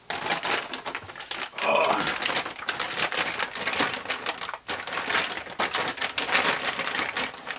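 Large plastic zip bag full of loose resin model parts being lifted and handled: the bag crinkles while the hard resin pieces clatter and click against each other.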